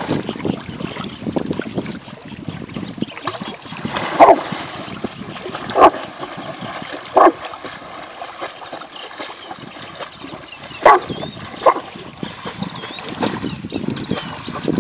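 Dog barking, five short barks spread through, over the splashing and lapping of lake water as a Rottweiler swims.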